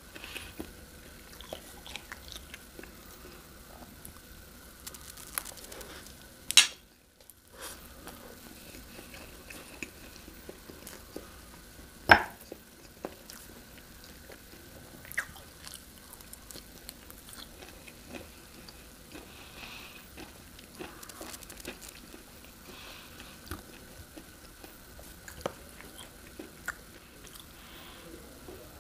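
Close-up chewing and mouth sounds of someone eating, with scattered small clicks of a fork against dishes. Two sharp, louder clacks come about six and twelve seconds in, and there is a brief drop to silence just after the first.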